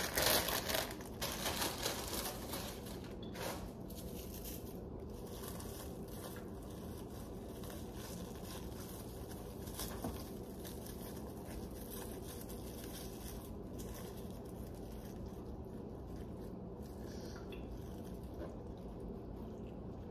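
A plastic zip-top bag crinkling as it is handled during the first few seconds, then only faint rustles and clicks over a steady low background hum.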